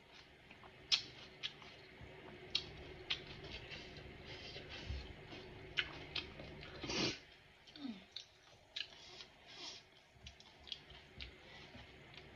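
A person chewing pani puri with her mouth closed: scattered soft crunches and wet mouth clicks, with one louder, longer mouth noise about seven seconds in.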